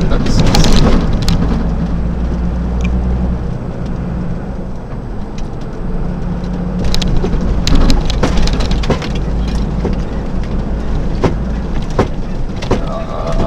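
Delivery truck's engine and road noise heard inside the cab while driving: a steady low drone with an even rushing haze, with scattered sharp clicks and rattles, most of them in the second half.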